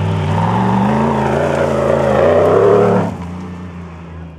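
Off-road SUV engine accelerating hard on a dirt course, its pitch rising steadily for about three seconds, then dropping away abruptly.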